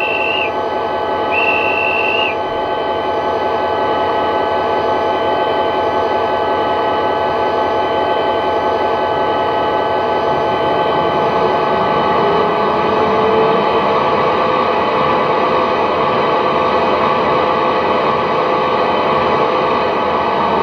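Model-railway DCC sound decoder playing a Class 59 diesel's EMD two-stroke engine at idle through the locomotive's small speaker. A guard's whistle sounds twice near the start, and about ten seconds in the cooling fan sound starts: a rumble thickens, then a whine rises and settles into a steady tone.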